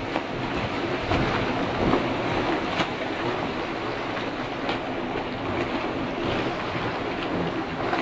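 Dense, continuous splashing of a pack of swimmers diving in off a pontoon and setting off front crawl in open water, arms churning the surface.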